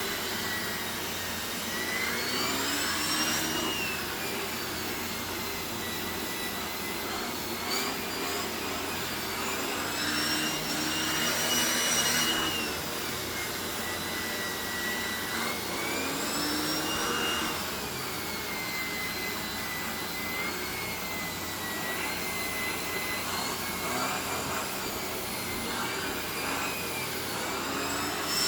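Shark Navigator Lift-Away Pro upright vacuum cleaner running, its motor whine rising and falling in pitch every few seconds over a steady rush of air. The air noise swells louder several times.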